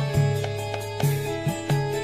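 Instrumental background music with a steady rhythm of plucked notes over held tones.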